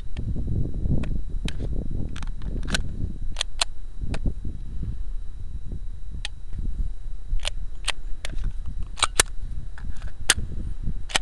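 Glock pistol firing a long string of shots at irregular intervals, some in quick pairs, with a pause of about two seconds midway. A steady low rumble runs underneath.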